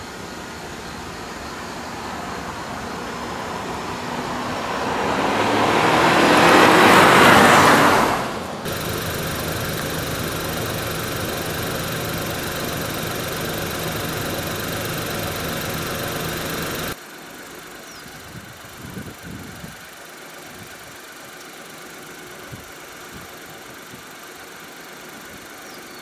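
A Volkswagen Polo drives up and past, its engine and tyre noise building to a peak about seven seconds in and then falling away. After a cut, a car engine idles steadily, and then the sound drops to a quieter outdoor background with a few soft thumps.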